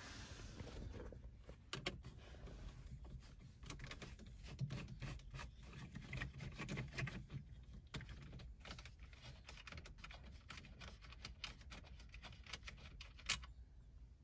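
Faint clicks and scrapes of a hand screwdriver backing out Phillips screws from a car's dashboard trim, with handling noise and one sharper click near the end.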